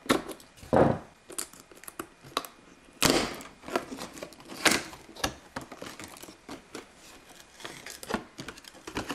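A pocket knife slicing through a sticker security seal on a cardboard box, then the seal peeled away and the cardboard lid opened. The sound is a series of short scratchy rasps and clicks, with lighter rustling of card between them.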